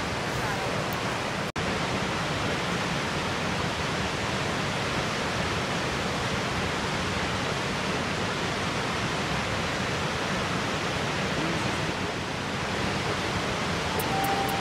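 Steady rushing of a tall waterfall plunging into a gorge, an even wash of falling water. It cuts out for an instant about a second and a half in.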